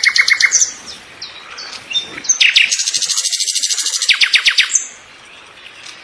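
A songbird singing: a rapid trill of evenly repeated high notes that ends about half a second in, a few short chirps, then a second fast trill of about two seconds.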